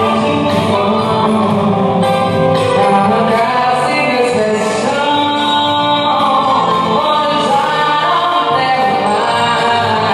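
Music: a song with singing, playing steadily.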